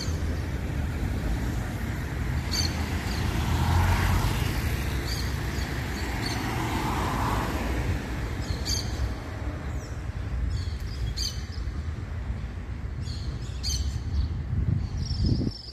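Road traffic going by, cars passing in a steady low rumble, with small birds giving short high chirps every second or two.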